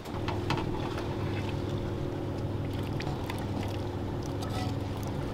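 A boat engine running steadily with a low, even hum, under light scrapes and taps of a wooden spoon pushing tomato sauce out of a cast-iron skillet.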